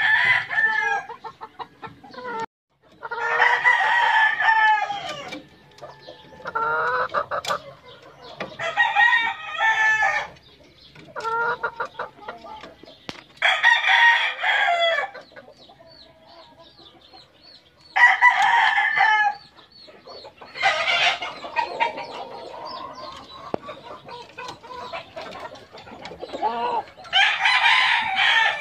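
Gamecock roosters crowing again and again, about eight crows a few seconds apart, with quieter clucking between them.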